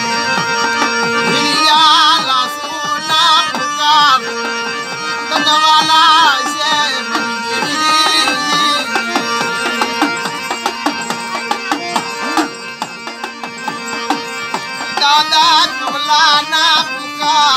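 Harmonium playing held reed chords, with a man singing a devotional folk song over it in phrases that come and go, and a hand drum keeping time.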